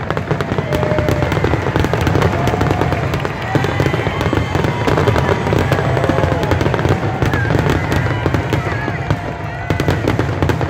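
Aerial fireworks shells bursting and crackling in a dense, continuous barrage, with no gap between the bangs.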